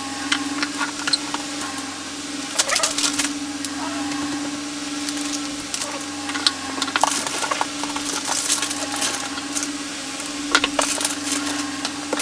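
Paper crinkling and crackling in short bursts, with scattered clicks, as a gift box is handled and wrapped. A steady hum runs underneath.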